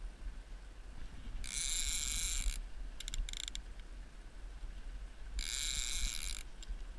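Fishing reel's drag buzzing as a hooked striped bass pulls line, in two high-pitched bursts of about a second each with a few short stutters between.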